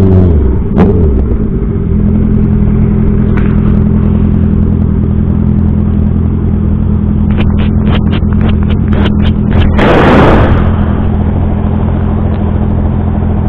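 Honda CB650 inline-four motorcycle engine with a loud exhaust, its note falling as it slows over the first second or two, then running steadily at low revs. A run of sharp clicks comes past the middle, and a brief hiss about ten seconds in.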